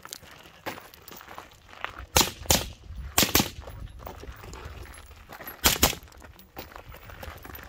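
AR-15 rifle firing 55-grain 5.56 mm rounds in quick pairs: six shots, two at a time, the pairs about a second or more apart.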